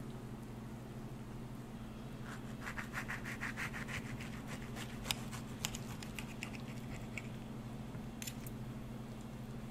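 Table knife sawing through a deep-fried pork chimichanga, its crisp shell scraping with quick strokes from about two seconds in, easing off after four seconds, with a few sharp clicks in the middle and near the end. A steady low hum runs underneath.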